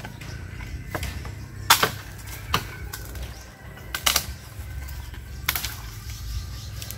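Wooden branches being broken up for firewood: four sharp cracks of wood spread over a few seconds.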